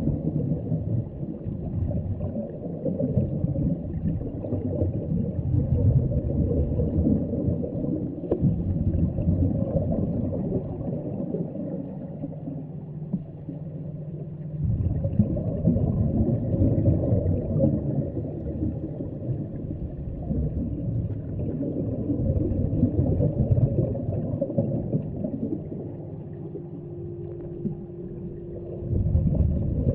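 Low underwater rumble and water noise picked up at depth, rising and falling in level. A faint steady hum shows through in two quieter spells, around halfway and near the end.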